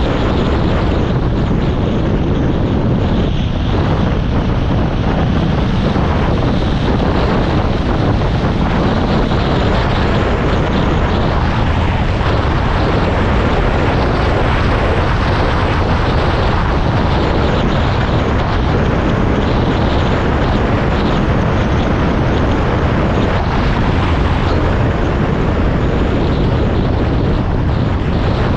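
A motor vehicle's engine running steadily with no change in speed, mixed with rumbling wind noise on the microphone.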